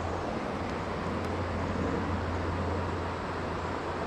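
Steady rush of flowing river water, an even noise with a constant low rumble underneath.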